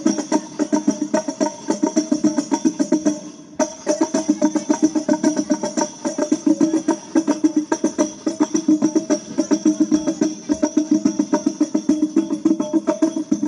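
Sholawat group's hand-drum percussion playing a fast, driving rhythm with pitched drum tones, heard through a large outdoor PA sound system during a sound check. It breaks off briefly a few seconds in, then carries on.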